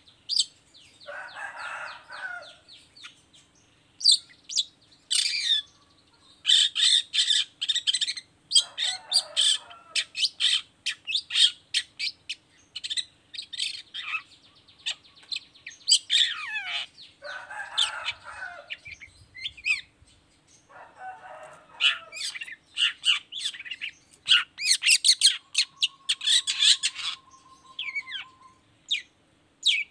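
Long-tailed shrike (cendet) in full song, pouring out a fast, varied chatter: rapid runs of scratchy clicking notes, quick slurred whistles, several harsh rasping calls, and one long steady whistle near the end. A faint steady hum runs underneath.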